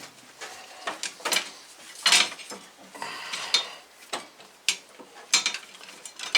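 Irregular metallic clinks, knocks and scrapes as an alternator is worked down into place in the engine bay, its metal housing striking the surrounding brackets.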